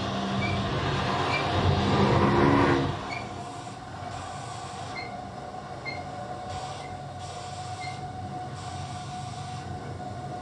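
Prepared, amplified hurdy-gurdy played in free improvisation as a noisy drone with a steady high tone. It swells and then drops away about three seconds in, leaving a quieter rasping texture with scattered short high pips.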